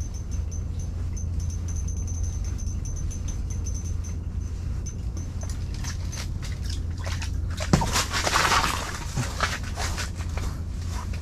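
A steady low hum, then a sharp knock about eight seconds in and a second of splashing and sloshing: a hooked fish thrashing at the ice hole as it shakes free of the hook.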